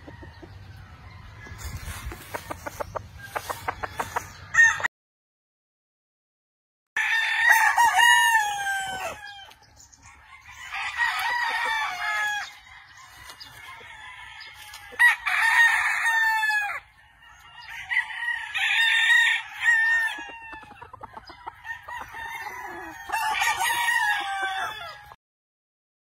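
Gamefowl roosters crowing, about five crows one after another in the second half, each tailing off downward in pitch. Before that come scattered clucks and light clicking sounds, then a brief dropout in the sound.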